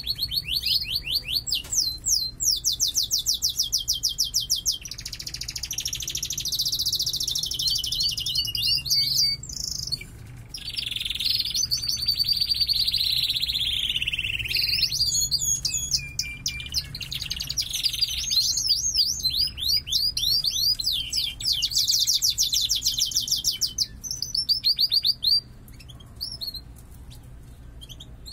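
Domestic canaries singing a long, strong song of fast rolling trills, phrase after phrase with short breaks, the full song of birds in breeding condition. The song stops a few seconds before the end, leaving a few short chirps.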